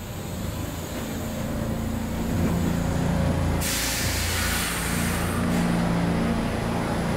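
Stockholm Metro C6 train at the platform, with a steady low hum that swells about a second in. About three and a half seconds in comes a burst of compressed-air hiss lasting over a second.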